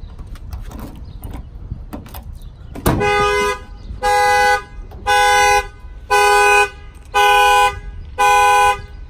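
A Ram pickup's horn honking in the factory alarm pattern, six blasts about a second apart: the alarm tripped by opening the tailgate while armed. A short knock just before the first honk.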